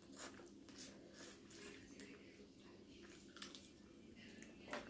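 Faint wet chewing and mouth smacks while eating crab, with scattered small clicks.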